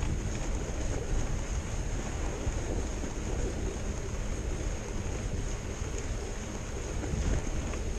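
Wind buffeting the microphone of a handlebar-mounted camera as a fat bike rolls over snow, mixed with the rumble of its wide tyres on the snowy trail. A faint steady high whine runs underneath.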